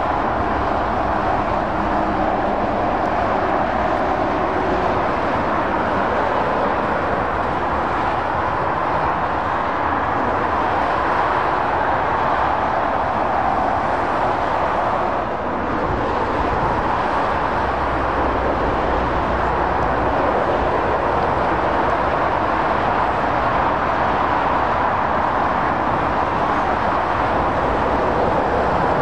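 Steady roar of motorway traffic: tyre noise and engines of passing lorries and cars, with a brief dip about halfway through.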